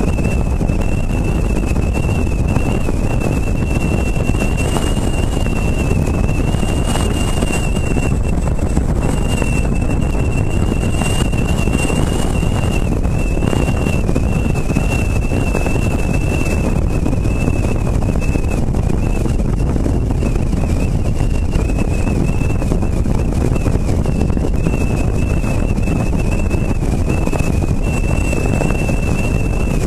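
Wind buffeting the microphone of a camera on the roof of a moving car, with road noise. It is a loud, steady noise carrying a thin, high whistle that wavers slightly in pitch.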